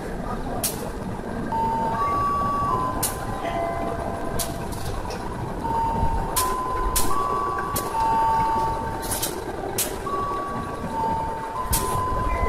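Diesel locomotive idling close by with a steady low rumble, broken by a dozen or so sharp knocks as it is coupled to a passenger coach. Over it runs a string of held electronic beeping tones that step between several pitches.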